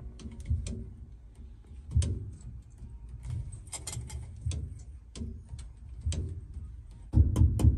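Scattered light metallic clicks and soft knocks of a gold chain being handled and wound around a padded drum. Near the end, music with a steady beat comes in.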